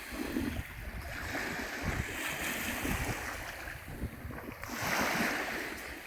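Baltic Sea waves washing onto the beach, swelling once about five seconds in, with gusts of wind rumbling on the microphone.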